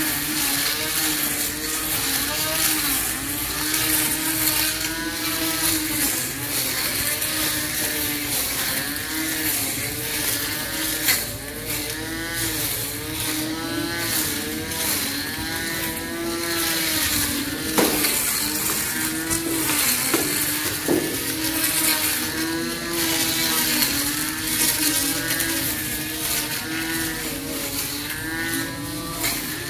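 Cordless battery-powered electric grass trimmer running, its motor whine sagging and recovering in pitch over and over as the spinning blade cuts into thick grass and weeds. A few sharp clicks come through in the middle stretch.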